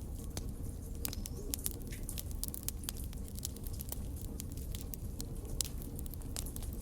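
Fire crackling: irregular sharp pops and snaps, many a second, over a low steady rumble of burning.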